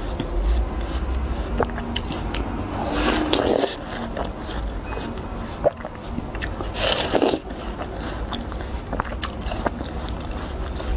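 A person biting into watermelon and chewing it, with crunchy, wet bites. Two big bites come about three and seven seconds in, with small mouth clicks and chewing between them.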